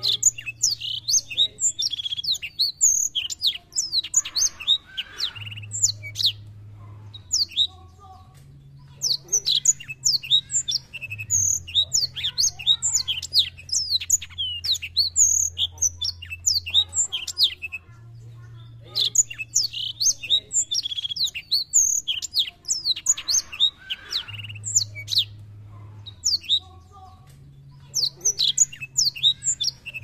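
Black-throated canary singing in bursts of rapid, high, sweeping chirps and trills, each phrase about four seconds long with pauses between, about every nine seconds. A faint low hum runs underneath.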